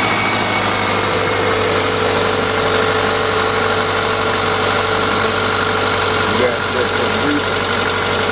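2000 Subaru Impreza Outback's 2.2-litre flat-four engine idling rough with a misfire, just after starting; the customer suspects a burnt valve.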